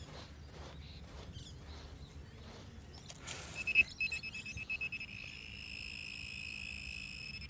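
Hands scraping loose soil, then a handheld metal-detecting pinpointer going off about three seconds in. It gives a loud high beep, a fast pulsing beep, then a steady high tone held to the end, signalling a metal target, here a coin, right at its tip.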